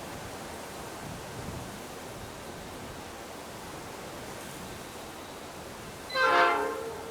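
A diesel locomotive's horn sounds one short blast, under a second long, about six seconds in, over a steady wash of wind noise.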